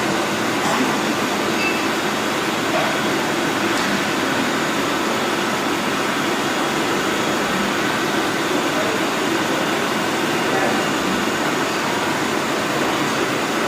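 CNC lathe running in a machine shop: a steady mechanical whir and hiss with a few faint high whining tones.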